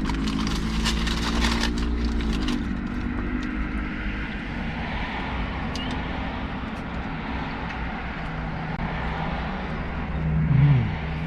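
Steady running of motor vehicles, a low hum with held engine tones that shift in pitch about two and a half seconds in. Sharp crackling clicks fill the first couple of seconds. A brief louder sound rises and falls in pitch near the end.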